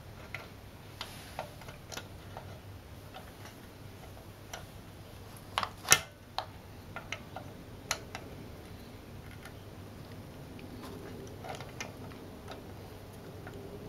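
Pliers bending a steel lock-tab retainer over a shift drum bolt in a Honda CL160 crankcase: scattered metallic clicks and ticks of the jaws on the tab, with one sharp, louder click about six seconds in.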